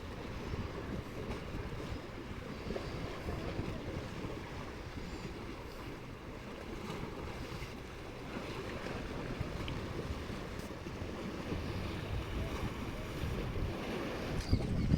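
Small sea waves washing onto the beach, with wind rumbling on the microphone.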